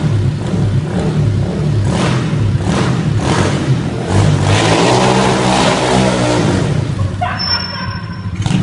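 Pit bike engine revving hard in repeated bursts during a burnout, the rear tyre spinning on the wet concrete floor; the revs climb to a sustained peak with a rising hiss about halfway through, then ease off near the end.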